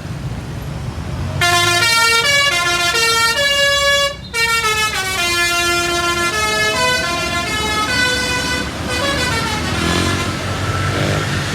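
Telolet musical bus horn playing a quick tune of stepping notes, starting about a second and a half in, with a brief break near four seconds, and stopping around nine seconds. A low engine and road rumble runs underneath.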